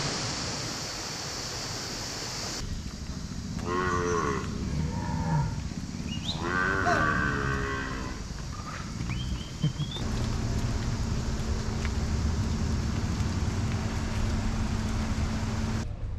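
Cattle mooing: two long calls a couple of seconds apart, over a steady rushing background noise.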